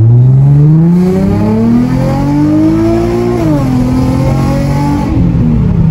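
Nissan 350Z's 3.5-litre V6, heard from inside the cabin, accelerating with rising revs. It shifts up about three seconds in and pulls on at lower revs, easing off near the end.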